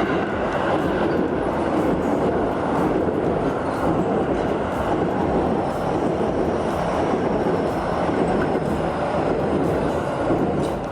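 A Keio Line electric train passing, with a steady rolling rumble of wheels on the rails.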